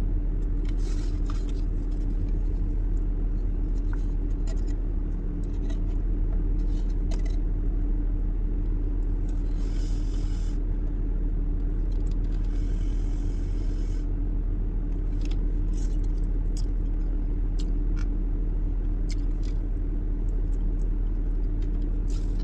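Steady low hum of a parked car running, heard inside the cabin. Scattered small clicks, scrapes and rustles from a plastic fork and a cardboard food box as someone eats.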